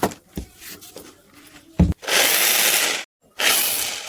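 Electric drill fitted with a new armature, run in two short bursts of about a second each, starting and stopping sharply, after a few knocks and clicks of handling: a test run of the repaired motor.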